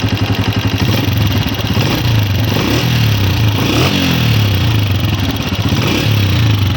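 Honda CG 125's air-cooled single-cylinder four-stroke engine idling with a rapid ticking clatter, revved briefly about halfway through. The ticking comes from loose tappets, meaning excessive valve clearance, which the factory leaves slightly loose on new bikes.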